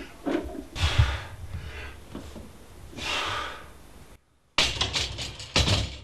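Loaded barbell on a bench press: hard breaths during the lift, a thud about a second in, then, after a brief gap, metal clicking and a heavy clank near the end as the bar goes back onto the rack uprights.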